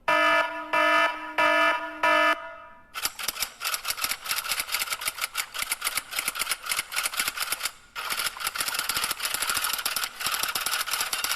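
Sound effects played back to back: a pulsing electronic alarm beep sounds four times. It is followed by a long run of rapid, fast-repeating clicks or shots, which break off briefly about eight seconds in.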